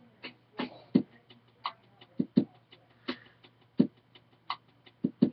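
A string of short, sharp clicks and taps at irregular intervals, about fifteen in all, over a faint steady low hum.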